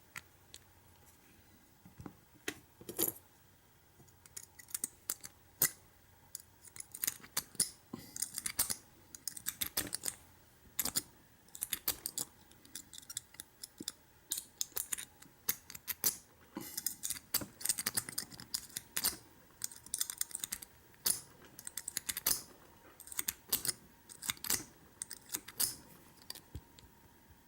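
Irregular light metallic clicks, often in quick clusters, of an American 600 padlock's pin-tumbler cylinder being worked with a tool. The cylinder is really stiff, its pins frozen.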